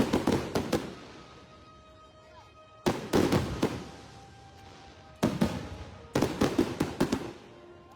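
Fireworks show: clusters of rapid bangs and crackling bursts at the start, about three seconds in, and again from about five to seven seconds in, with quieter gaps between the volleys.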